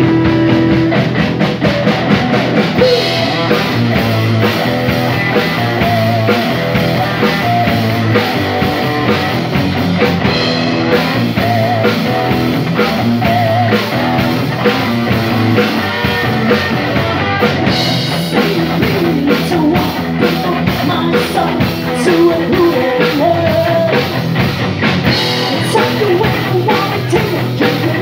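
Live rock band playing loud through amplifiers: electric guitars, bass guitar and drum kit, with a woman singing over it.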